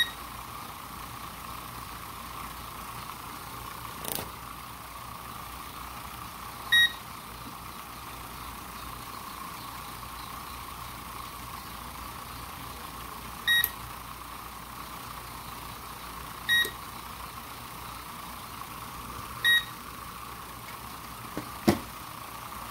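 Universal split air-conditioner control board's buzzer giving short beeps, five times, as remote buttons are pressed, over the steady hum of the indoor fan motor running. A click sounds about four seconds in and again near the end.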